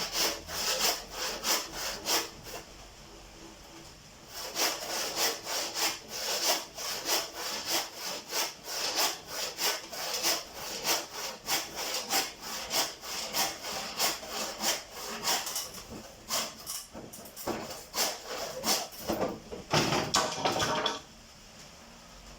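Hand saw cutting through a wooden stick in steady back-and-forth strokes, about two a second. It pauses twice, speeds up briefly near the end, then stops as the cut finishes.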